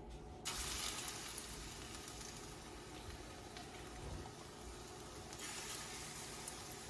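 Shredded-zucchini batter sizzling as it fries in hot vegetable oil: a steady frying hiss that starts suddenly about half a second in and carries on.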